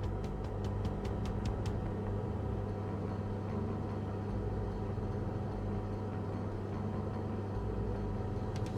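Steady low hum of a 3D printer's fans and the extraction fan running while the printer heats up, with a few faint ticks in the first couple of seconds.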